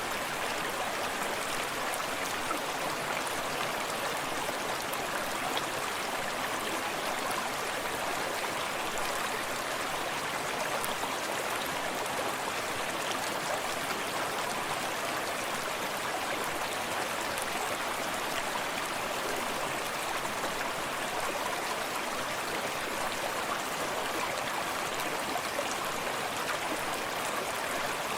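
Forest stream running steadily over rocks, a constant rushing and splashing of water.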